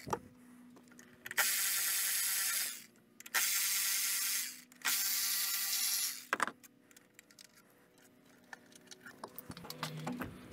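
A power tool runs in three short bursts of a little over a second each, then small clicks and taps of parts and tools being handled.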